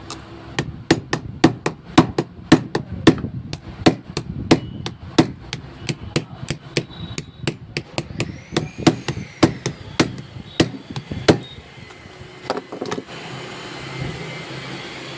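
Hammer tapping at a jammed ignition lock: a quick run of sharp blows, roughly three a second, that stops about eleven seconds in, followed by two more blows a little later.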